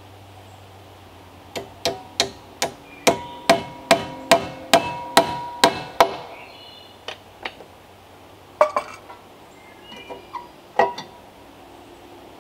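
A hammer driving a nail into an overhead log beam: about a dozen quick blows, roughly two and a half a second, each with a short metallic ring. A few lighter, scattered knocks follow near the end.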